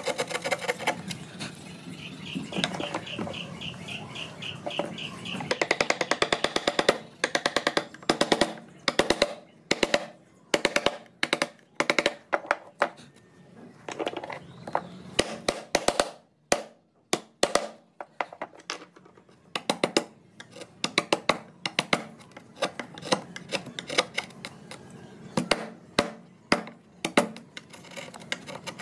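A wood-carving chisel driven into a hardwood board in quick runs of sharp strikes, cutting the relief scroll and leaf design.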